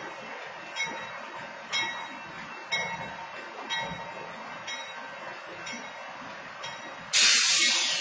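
Diesel freight locomotives rolling slowly past, with a steady rumble and a sharp metallic strike about once a second. About seven seconds in comes a loud, sudden burst of air hiss that fades over the next second.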